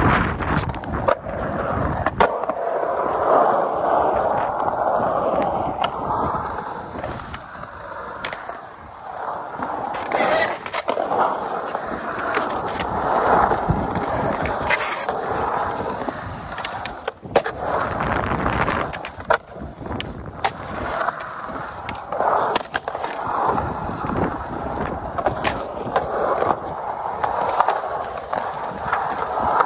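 Skateboard rolling on a concrete skatepark, the wheels' rolling rumble swelling and fading as the rider carves, broken by repeated sharp clacks of the board.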